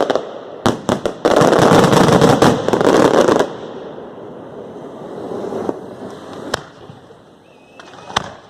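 Fireworks: a dense, loud run of rapid crackling reports that stops about three and a half seconds in and dies away, followed by a few single sharp bangs.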